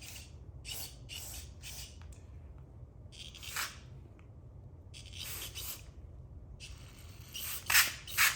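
Aerosol carburetor cleaner sprayed in a series of short hissing squirts, several in quick succession at first and louder ones near the end, used to clean the carburetor needle.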